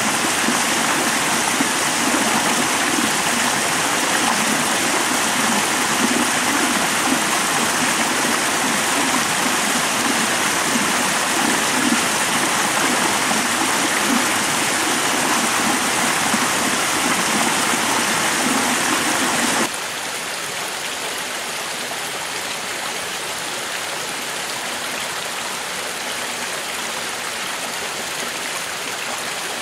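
Mountain brook below a karst spring rushing and splashing over rocks in a steady, full rush of water. About two-thirds of the way through it cuts abruptly to a quieter, thinner rush.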